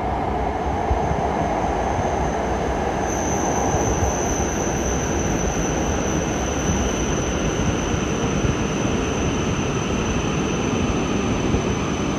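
E5 series Shinkansen train making a steady, even noise, joined about three seconds in by a thin, high, steady whine.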